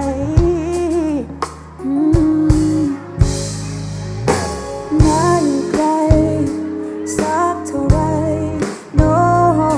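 Background music: a pop song with a sung melody over a drum beat and bass.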